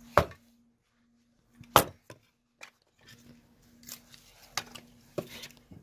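Hatchet splitting a block of pine into kindling on a wooden chopping block: two sharp chops about a second and a half apart, followed by lighter knocks and clatter of the split sticks being handled.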